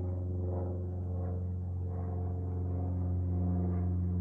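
Steady low drone of a Boeing 787-9 airliner flying high overhead, a continuous hum with a slight waver that slowly grows louder.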